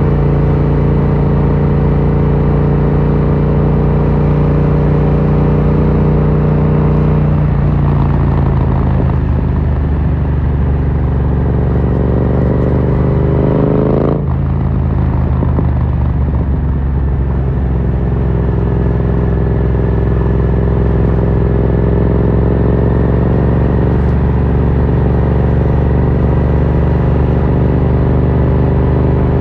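Yamaha MT-07's parallel-twin engine running through an Akrapovic carbon full exhaust. It holds a steady cruise, eases off about seven seconds in, then the revs climb and break off sharply at an upshift about fourteen seconds in. It then settles back to a steady cruise.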